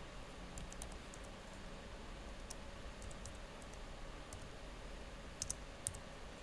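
Computer keyboard keys being typed slowly, in a few sparse, irregular clicks. The two loudest clicks come near the end.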